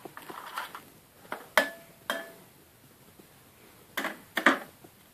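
An egg being tapped against the rim of a glass mixing bowl to crack it: several sharp knocks, two of them setting the glass ringing briefly, with another pair of knocks later on.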